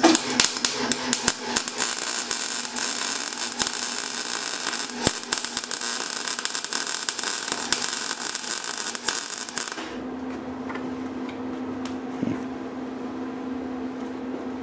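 MIG welder arc crackling and sputtering steadily as a bead is laid, for about ten seconds, then stopping suddenly. A steady low hum carries on underneath and after it.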